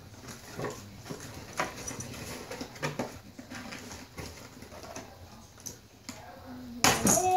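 Scattered small clicks and rustles of toy packaging being handled and cut open. Near the end comes a sudden, louder, short whining cry.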